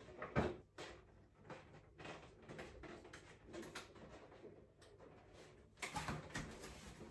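Quiet handling noises: a sharp knock about half a second in, scattered faint clicks and short rustles, and a louder spell of rustling near the end.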